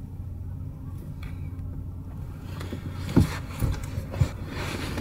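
A steady low hum, then from about two and a half seconds a mess tin cooking over a small folding stove's open fire: crackling and sizzling with a few dull knocks.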